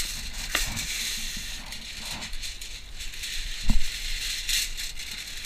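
Sheet of aluminium foil crinkling and rustling as it is pulled from the box and handled, with one sharp thump a little past halfway.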